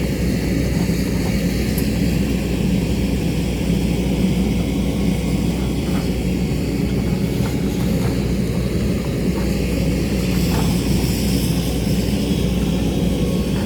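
JCB excavator's diesel engine running steadily under working load, a constant low drone with a few faint ticks.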